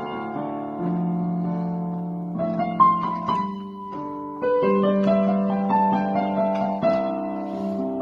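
Piano music: sustained notes and chords shifting every second or so.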